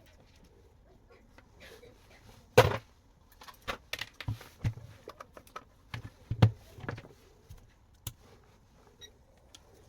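Clicks and knocks of hands and tools working on a car door and its lock parts: one sharp knock about two and a half seconds in, then a run of irregular clicks and knocks.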